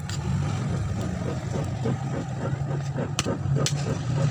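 A man chewing food close to the phone's microphone, soft mouth noises in an uneven rhythm with a couple of light clicks, over a steady low hum.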